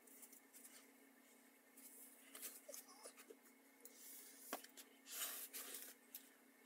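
Quiet handling and rustling of someone moving close to the camera while setting up books, with a sharp click about four and a half seconds in and a louder brushing noise just after, over a faint steady hum.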